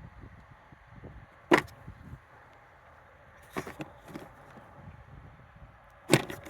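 Steel impact sockets being handled, with three sharp metallic clinks spread a couple of seconds apart and a few softer ticks between them.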